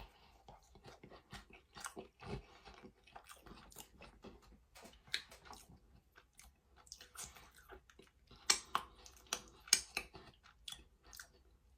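Close-up chewing of a mouthful of buttery, frosted strawberry biscuit: soft irregular mouth smacks and clicks, growing louder and more frequent in the second half.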